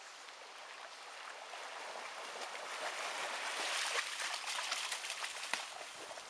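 Water splashing and sloshing at the river's edge, with many small splashes, growing to its loudest a little past halfway and then easing off.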